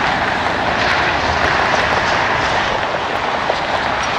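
Jet airliner engines across the airfield, a steady, loud rushing noise with no change in pitch.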